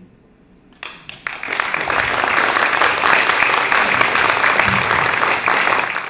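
Audience applauding: a few scattered claps about a second in, then dense, steady applause.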